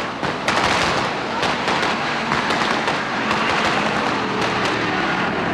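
Dense, continuous gunfire: many rifles and machine guns firing rapid overlapping shots that run together into a steady crackling rattle.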